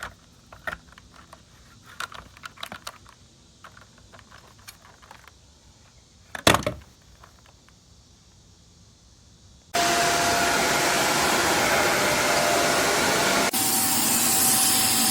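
Clicks and handling knocks, one sharp knock in the middle, then a Shark Stratos upright vacuum cleaner switches on abruptly and runs loudly and steadily, its sound changing slightly a few seconds later.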